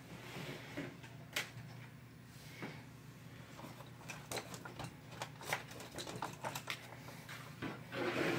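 Scattered clicks, taps and light knocks from an unboxed rolling barn door organizer and its packaging being handled, coming more often in the second half.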